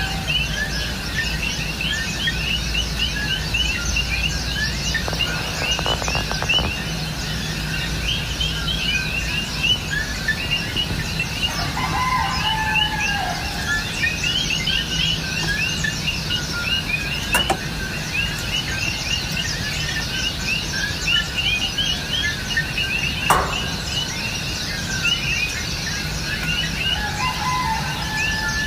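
A large flock of birds calling together in a dense, continuous chorus of short high chirps, with a few lower calls now and then. Two sharp clicks are heard partway through.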